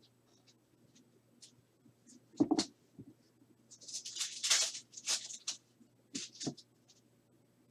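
Football trading cards and their pack being handled: a knock a little over two seconds in, a papery rustle of cards sliding through the middle, then a few sharp clicks near the end.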